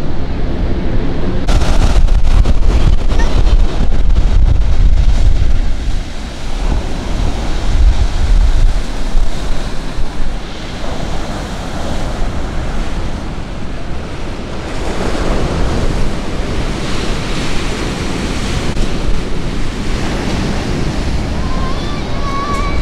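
Sea waves breaking and washing onto the beach, with wind buffeting the microphone, heaviest in the first third. Surges of surf swell up again past the middle.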